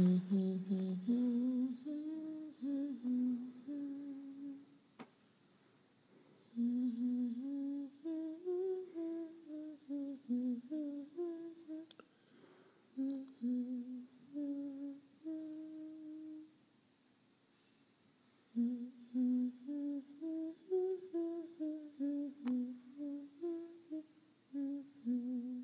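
A voice humming a slow, wordless tune in phrases, with two short pauses.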